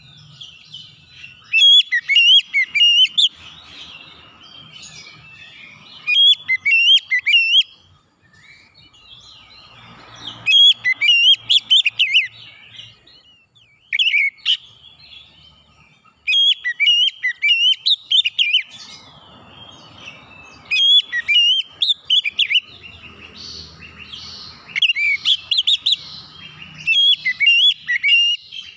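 Oriental magpie-robin singing loudly: bursts of fast, sharp, varied whistled notes, each phrase lasting one to three seconds, with short pauses between.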